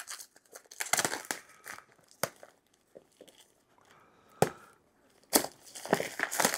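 Product packaging being torn and crinkled by hand while a boxed set of earbuds is opened: scattered sharp crackles and rips, growing into denser crinkling near the end.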